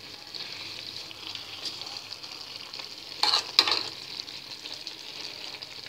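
Broccoli, carrots and tomatoes cooking in a metal pan with a steady hiss. A metal spoon stirs and scrapes against the pan twice, a little over three seconds in.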